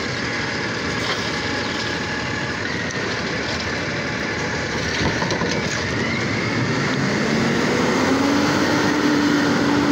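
Automated side-loader garbage truck working at the curb: its engine and hydraulic arm run as the arm lifts a trash cart and empties it into the hopper, with several sharp knocks from the cart and arm. From about six seconds in, the engine pitch rises and the sound grows louder as the truck pulls away.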